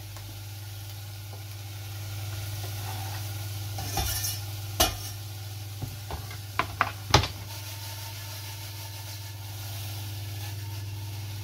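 Diced red onion and garlic sizzling in oil in a saucepan, a steady hiss over a low steady hum. In the middle come a handful of sharp knocks and clatters of pan and kitchen utensils, the loudest about seven seconds in.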